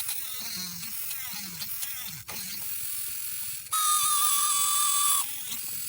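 Small DC motor of a home-made mini drill switched on, running with a steady high whine for about a second and a half, then cut off. It starts a little over halfway through.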